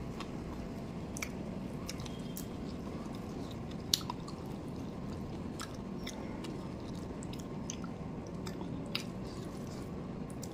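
Close-up eating sounds: chewing rice and chicken curry with wet, squishy mouth noises. Scattered small clicks come as fingers mix the rice on a steel plate, and the sharpest click falls about four seconds in.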